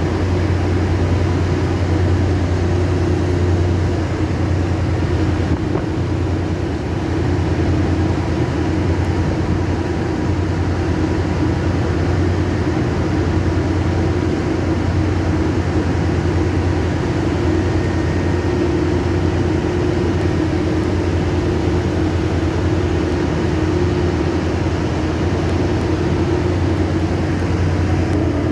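Land drilling rig machinery running with a steady, unbroken low drone, with the even hiss of heavy rain over it.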